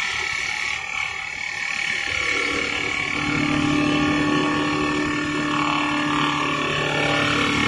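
Automatic CNC wood lathe running as its spinning brush wheel polishes a turned wooden spindle: a steady motor hum over noise, growing stronger about three seconds in.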